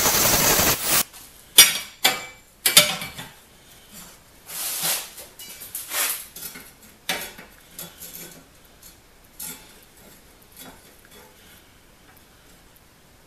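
Hitachi 9-inch angle grinder grinding steel, cutting off about a second in. Then a run of sharp metal clanks and rattles as the welded steel frame rails are handled and set down, growing sparser and fainter.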